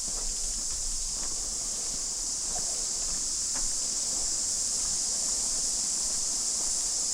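Steady, high-pitched chorus of cicadas singing in summer, with faint footsteps of a person walking on a garden path.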